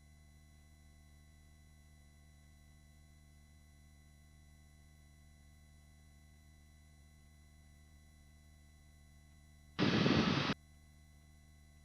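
Helicopter cabin intercom feed: a low steady electrical hum with faint whine tones. About ten seconds in, a burst of loud rushing noise under a second long starts and stops abruptly, as a headset microphone's voice gate briefly opens on the cabin noise.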